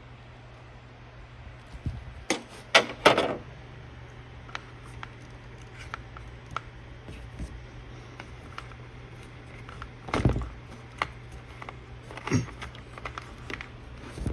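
A series of knocks and clunks from objects being handled, a cluster of three about two to three seconds in and single ones near ten and twelve seconds, over a steady low hum.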